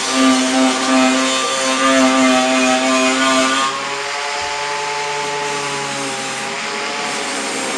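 Power tool, most likely an angle grinder, running steadily on metal. About two-thirds of the way through, its pitch drops and it gets a little quieter, as if it were pressed harder into the work.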